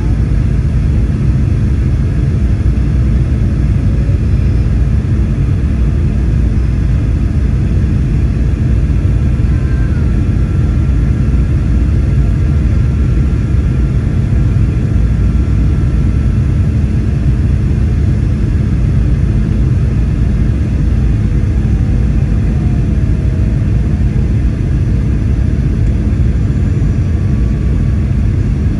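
Boeing 737-800's CFM56 engines and airflow heard inside the cabin during final approach: a loud, steady rumble with a steady low hum.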